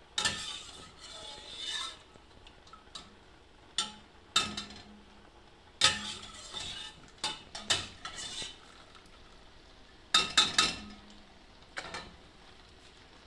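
Slotted spoon knocking and scraping against the inside of a stainless steel stockpot as cooked farfalle pasta is scooped out of the water, in irregular bursts of clinking and clatter, loudest about six and ten seconds in.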